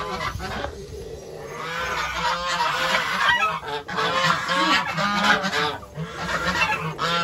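A group of white domestic geese honking, many calls overlapping, growing louder and busier about two seconds in.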